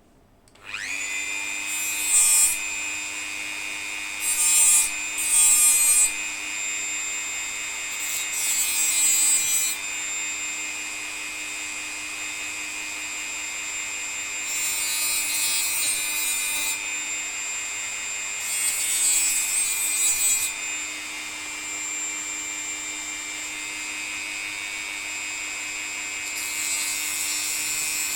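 Dremel rotary tool spinning up about half a second in and then running with a steady high whine. About seven short bursts of grinding come as it trims the protruding ends of small nails in a wooden model boat.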